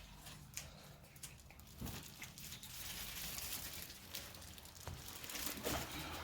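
Packaging being handled: faint, scattered crinkling with a few light knocks and taps.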